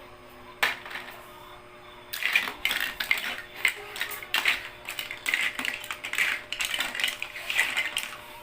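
Toy kitchen pieces clattering and clicking together as they are rummaged through and handled: one sharp click about half a second in, then a busy, irregular clatter from about two seconds in.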